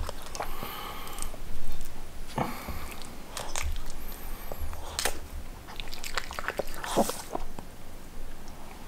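A dog chewing and biting food: a string of irregular chomps and clicks.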